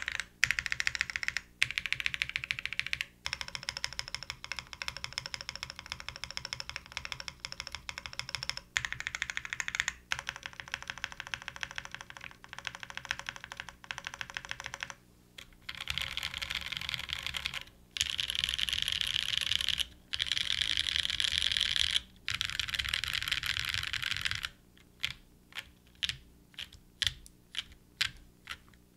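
Custom 60% mechanical keyboard with lubed Novelkeys Nolives linear switches in an aluminium plate and GMK keycaps, typed on fast in long runs broken by short pauses. Near the end it slows to single keystrokes, about two a second.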